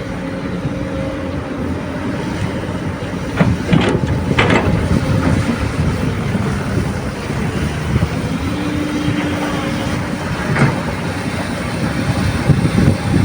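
Komatsu PC200 excavator's diesel engine running steadily under load during loading of rocky soil, with a few sharp knocks of rock and bucket: a cluster a little past three and a half seconds in and another near ten and a half seconds.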